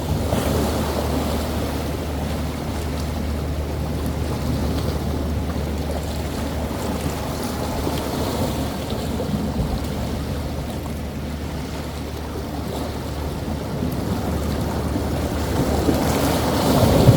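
Rough sea waves surging and breaking, the surf swelling louder about a second before the end, over a steady low rumble of wind on the microphone.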